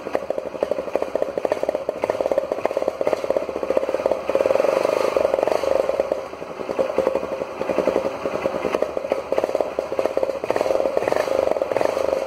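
Motorcycle engine running through a stock exhaust fitted with a homemade add-on meant to change its sound, giving a rapid pulsing exhaust note that swells and dips a few times.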